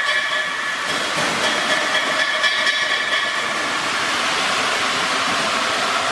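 Electric-motor-driven corn cleaning and grinding machine running steadily, a continuous hiss with several high whining tones over it.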